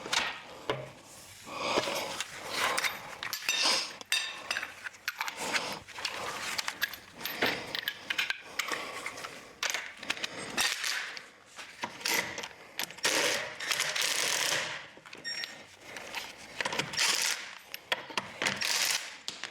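Irregular metallic clatter and clicks of tools and wheel bolts being handled while the road wheels are taken off, with short bursts of tool noise.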